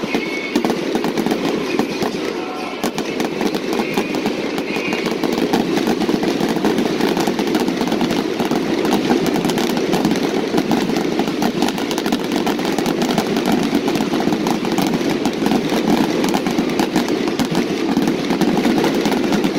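Fireworks going off in a dense, continuous barrage of rapid pops and crackles over a steady rumble.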